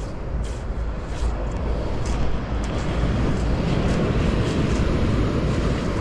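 Steady rushing noise of ocean surf and wind on the microphone.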